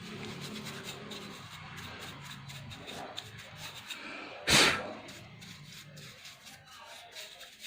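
Scratchy rubbing and scraping as dust is cleaned out of a laptop's cooling fan, with many small clicks and one louder, short burst of noise about four and a half seconds in.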